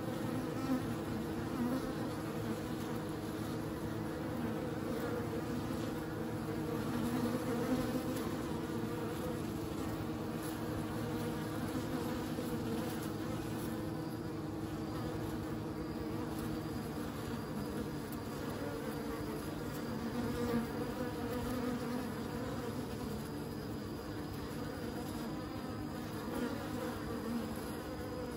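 Honeybees buzzing at a hive entrance as foragers fly in and out: a steady hum of several overlapping pitches from many beating wings.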